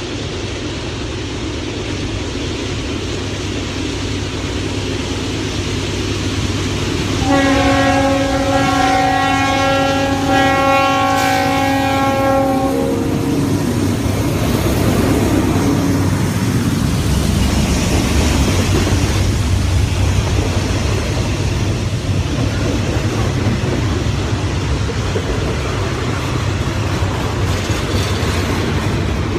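Norfolk Southern GE Dash 9 diesel locomotive approaching and growing louder. About seven seconds in it sounds one long blast of a nasty-sounding Leslie RS-3L three-chime horn, lasting about five seconds and dropping slightly in pitch as it goes by. The locomotive then passes, followed by double-stack intermodal cars with steady wheel rumble and clickety-clack.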